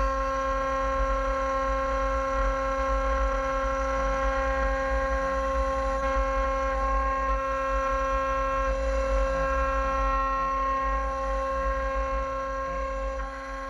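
CNC router spindle running with a steady, high whine and a low rumble underneath, fading out near the end.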